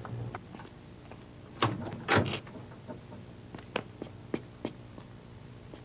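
A door being unlatched and opened: a few sharp clicks and knocks, the loudest about two seconds in, followed by several lighter taps.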